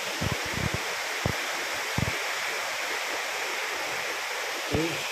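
Steady rushing hiss of a waterfall cascading down stepped rock ledges into a pool, with a few short low thumps in the first two seconds.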